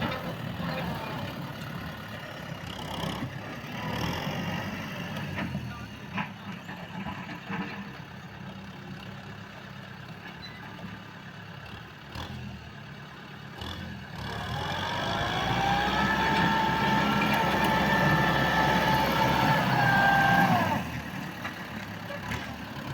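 Kubota M6040S tractor's diesel engine running while ploughing a rice field. About two-thirds of the way in it gets louder and rises in pitch to a steady pitched drone that holds for several seconds, then drops back to the lower running note near the end.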